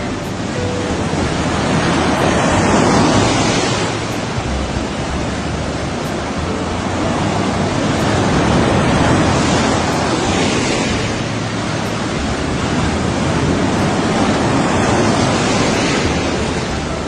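Sea waves breaking and washing ashore in a steady rush of surf that swells three times, about six seconds apart.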